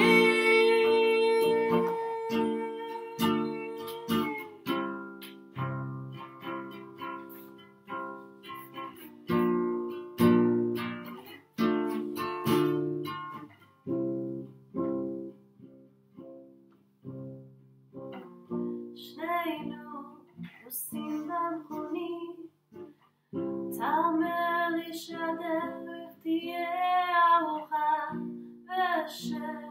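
Acoustic guitar playing chords, with a woman's voice holding a long sung note for the first few seconds; the guitar then plays alone, and singing without clear words comes back about two-thirds of the way in.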